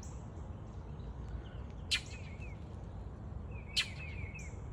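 Northern mockingbird giving short runs of quick, repeated chirps, three times, over a steady low background noise, from a bird agitated at an intruder near its territory. Two sharp clicks stand out as the loudest sounds, about two seconds in and again near the end.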